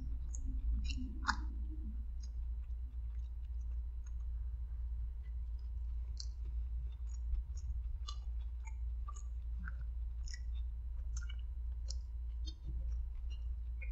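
A person chewing a roast beef sandwich: scattered wet mouth clicks and lip smacks throughout, with another bite near the end. A steady low hum runs underneath.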